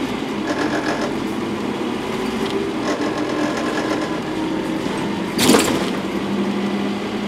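Scania N230UD double-decker bus heard from inside the lower deck on the move: its five-cylinder diesel engine running steadily under a faint whine that rises and falls. A brief loud burst of noise comes about five seconds in.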